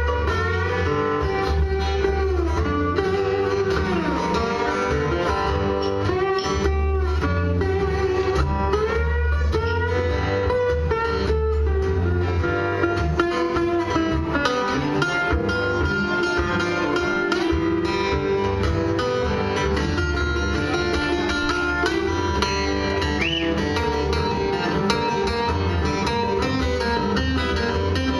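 Two acoustic guitars playing together live in an instrumental passage, picked melody lines over chords. About four seconds in, a note slides down in pitch.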